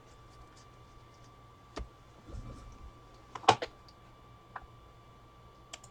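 A few short, scattered clicks and taps in a quiet room, about five in all; the loudest is a quick pair about three and a half seconds in.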